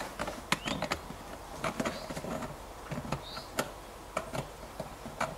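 Irregular clicks and knocks of plastic on plastic as the threaded nut of a tank connector is screwed up by hand from inside a plastic tub, the tub bumping as it is handled.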